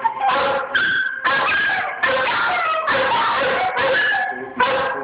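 Two dogs howling along to music, the music the louder of the two.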